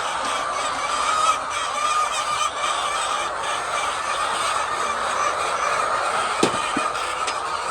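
A flock of chickens calling together in a continuous, dense chorus, with two sharp knocks about six and a half seconds in.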